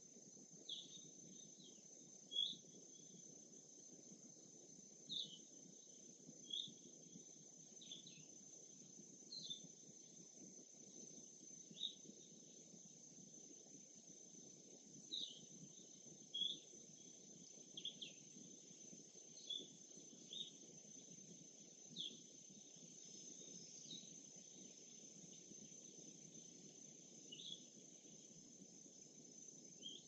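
Faint, scattered birdsong: short high chirps every second or two, over a steady high insect drone and a soft low wash of water and wind.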